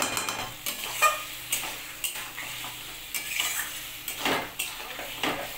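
Flat metal spatula stirring and scraping pieces of lote (Bombay duck) fish around a metal kadai, with the fish frying in spiced onion masala. The scrapes come in repeated strokes, the sharpest about a second in.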